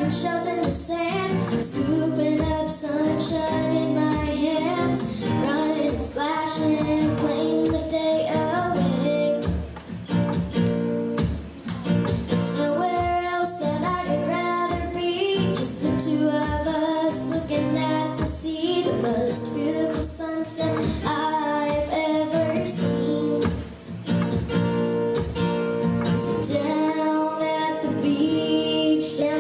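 Background music: a song with a female lead vocal over acoustic guitar.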